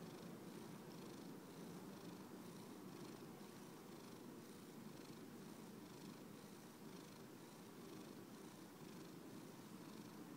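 A grey domestic cat purring steadily while its head is stroked. The purr is faint and rises and falls in an even rhythm.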